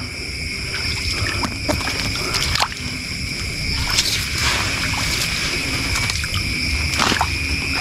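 Steady chorus of crickets, a constant high trill, with water sloshing and a few sharp splashes as someone wades through shallow water.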